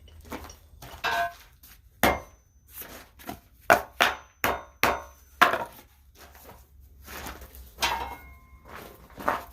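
Irregular blows on steel at an anvil, about a dozen, bunched in the middle, a few leaving a brief metallic ring.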